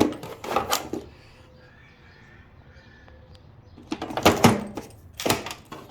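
Tools being handled and rummaged through in a toolbox: short clattering and scraping sounds near the start, then a louder run of them from about four to five and a half seconds in.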